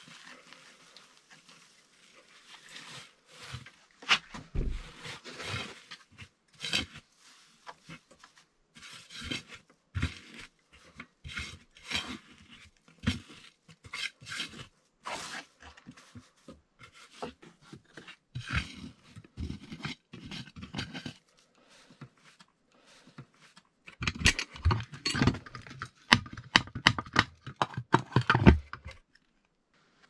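Handfuls of dry wood shavings rustling and scraping as they are scooped and packed by hand around a metal lid set in a wooden floor. Near the end comes a denser run of louder knocks and scrapes.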